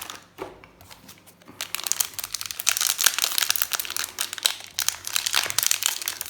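Foil wrapper of a Commander Legends draft booster pack crinkling as it is handled and worked open, starting about a second and a half in. The pack is hard to tear open.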